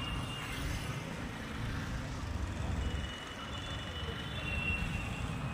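City street traffic: a steady rumble of passing motor vehicles, with a thin, faint high tone in the second half.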